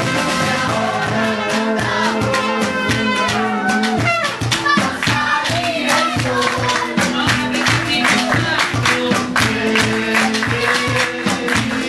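Live band playing a song with drum kit and guitar, a melody line gliding over it; the drum strokes come harder and busier from about four seconds in.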